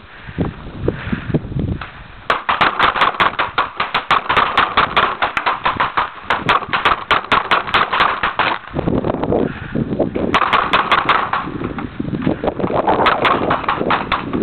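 Paintball markers firing in rapid strings of shots, about seven a second. A long string runs for about six seconds, and shorter bursts follow after pauses.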